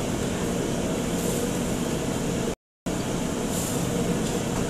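Steady noise of a restaurant kitchen's exhaust hood fan and gas wok burners running, with a faint steady hum. The sound cuts out completely for about a quarter of a second a little past halfway, then returns.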